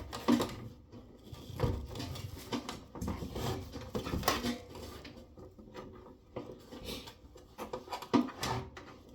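Irregular knocks, clicks and clatter of hard objects being handled and set down, several a second at times, with no steady machine running.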